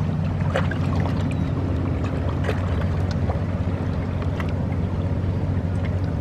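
A boat's engine running with a steady low drone, with a few faint short ticks over it.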